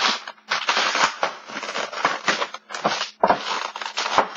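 Stiff clear plastic clamshell packaging crackling and crunching as it is pried open by hand, in a string of irregular bursts with short pauses.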